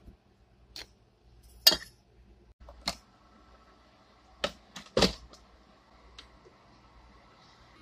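A run of sharp clinks and clacks from making a cup in a Keurig single-serve coffee brewer: a spoon working in a glass sugar jar, the loudest clack about a second and a half in, then a cluster about five seconds in as the handle is closed over the pod, and a light button click after it, over a faint steady hum from the machine.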